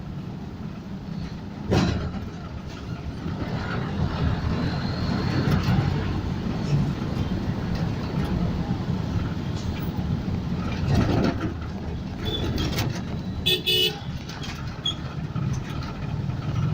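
Street traffic running steadily with engine rumble, and a couple of short vehicle horn toots about three-quarters of the way in.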